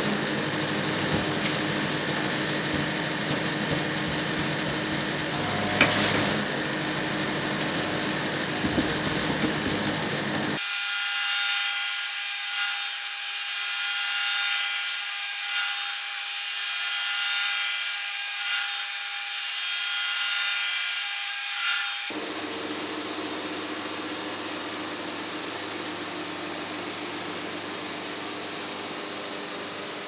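Hydraulic band sawmill running with its blade sawing through a log. The sound changes abruptly twice, losing all its low end through the middle section.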